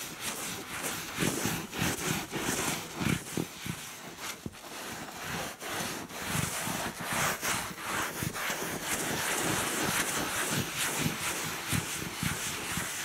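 Wet, soapy sponge scrubbing leather sofa upholstery, rubbing over the surface in repeated back-and-forth strokes.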